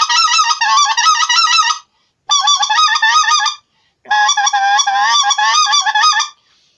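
Redbone polycarbonate goose call with a Delrin sound insert, blown by mouth in fast strings of goose-like notes. It plays three runs with short breaks between them: the first stops a little under two seconds in, a short one follows, and a longer one ends near the close.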